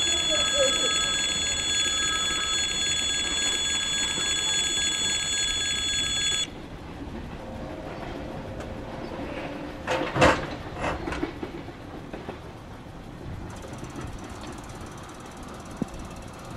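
Railroad level-crossing warning signal ringing steadily, then cutting off suddenly about six and a half seconds in. A low background rumble goes on after it, with a short cluster of loud clanks about ten seconds in.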